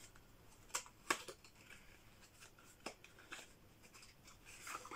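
Faint rustling and scattered clicks of a small cardboard foundation box being opened and handled by hand, with a few sharper clicks about a second in and a cluster of rustling near the end.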